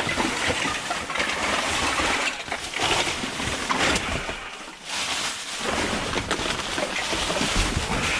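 Rummaging through a dumpster: plastic bags and food packaging rustling and crinkling, with many small knocks. It eases off briefly about halfway through.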